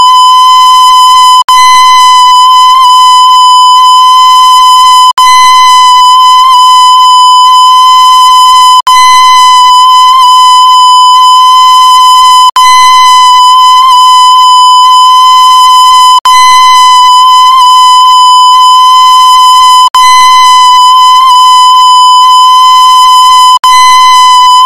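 A very loud, buzzy tone held at one unchanging high pitch, cutting out for an instant about every three to four seconds before starting again.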